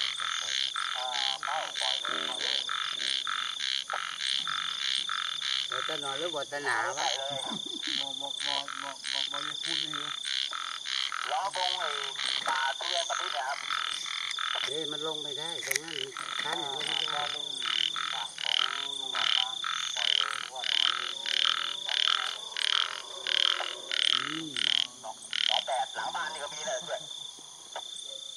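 Night chorus of frogs: rhythmic high-pitched calls about two a second over a steady high trill, the calls growing louder in the second half.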